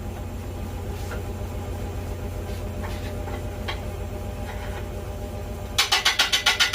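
Wood lathe running with a steady low hum, turning a rough magnolia blank at about 500 RPM. Near the end a bowl gouge starts an interrupted cut on the out-of-round blank, and a sudden, loud, rapid run of regular knocks begins, about eight a second.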